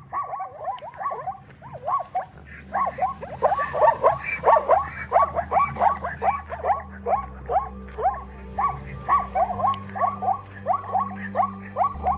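An animal giving a rapid series of short, downward-sliding squealing calls, about two a second, over soft, slow background music.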